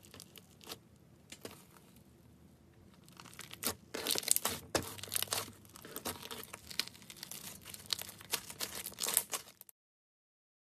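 Thick yellow slime with red bits mixed in, pressed and pulled apart by hand: sticky crackling and tearing. It is faint at first and becomes loud and dense from about four seconds in, then stops abruptly near the end.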